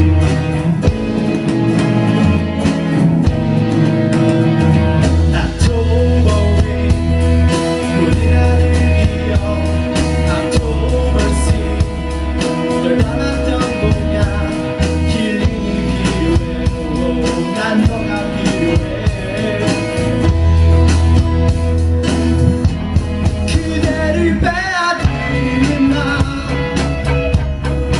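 A live rock band playing a song, with drums, bass and guitar. There is some singing at times.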